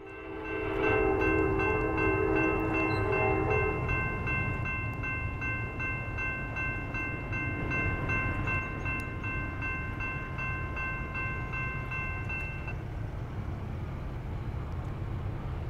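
Canadian National SD70M-2 diesel locomotive sounding one long horn blast of about three seconds, over a grade-crossing bell ringing with steady, evenly spaced strikes that stops about 13 seconds in. A low locomotive rumble runs underneath.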